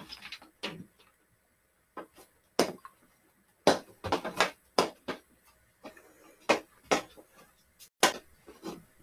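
Hockey stick blade tapping and knocking a small ball while stickhandling on carpet: an irregular run of short, sharp taps, about one or two a second.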